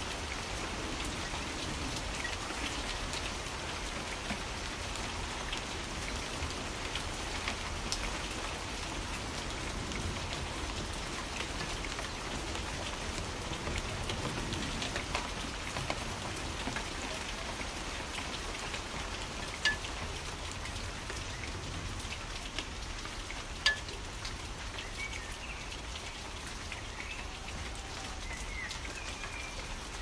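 Steady rain pattering, with a couple of sharp taps about two-thirds of the way through and a few faint bird chirps near the end.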